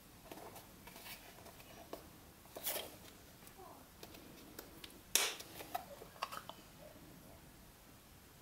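Hands handling a translucent plastic battery storage box: light rustling and a series of sharp plastic clicks as the box and its snap lid are worked, the loudest click about five seconds in and another about two and a half seconds in.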